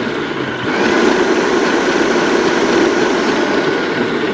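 Electric stand mixer running steadily, its motor giving a constant whine while it whips chantilly cream; the sound dips briefly about half a second in, then carries on.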